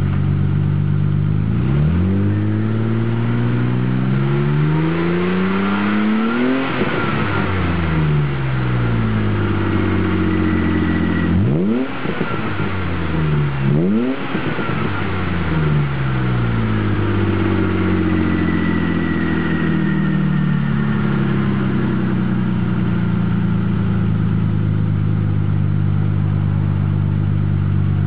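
BMW M30 straight-six in an E30 325, breathing through a Strömung exhaust, free-revving while parked. It idles, revs slowly up and back down, gets two quick throttle blips about twelve and fourteen seconds in, then sinks back to a steady idle.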